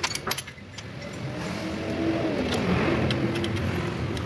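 Toyota Vios engine running, heard close to its alternator and belt pulleys, with a few sharp clicks near the start and the engine growing louder about a second and a half in. The mechanic judges the hum from the belt drive normal, with no alternator bearing noise left.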